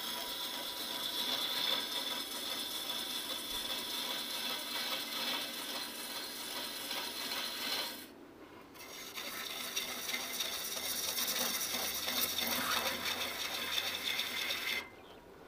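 Gouge cutting a large wooden vessel blank spinning on a lathe: a steady scraping hiss of wood being cut into shavings. It stops briefly about eight seconds in, and again near the end, where the tool comes off the wood.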